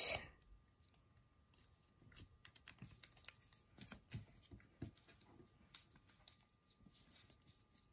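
Origami paper being folded and creased by hand against a tabletop: faint, scattered small crinkles and clicks.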